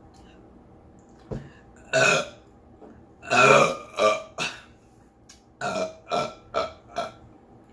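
A woman burping loudly over and over: a first burp about two seconds in, a long, loud one about three and a half seconds in followed by two shorter ones, then a quick run of short burps near the end.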